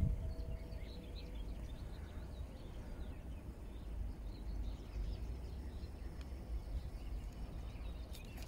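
Small birds chirping faintly over a low, steady outdoor rumble.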